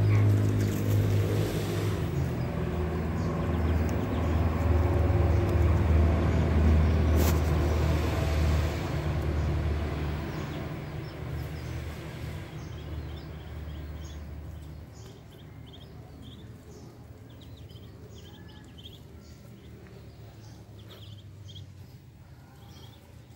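An engine running close by, loud for about the first ten seconds and then fading away over the next few. In the second half, ducklings peep in short high chirps.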